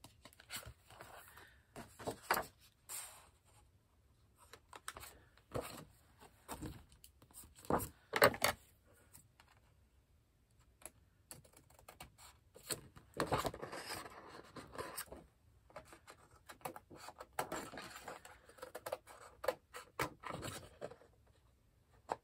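Scissors cutting through a sheet of paper, with irregular snips, clicks and scratchy rustling. The blades are not cutting cleanly and are mangling the paper's edge.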